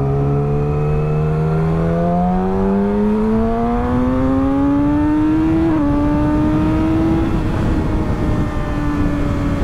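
Yamaha YZF-R6 inline-four sportbike engine pulling hard as the bike accelerates up to highway speed, its pitch rising smoothly. About six seconds in the pitch drops once with an upshift, then holds steady at cruise, under helmet wind rush.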